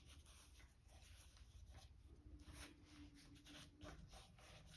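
Near silence, with faint soft rubbing as gloved fingertips smooth wet acrylic paint over the canvas and along its edge.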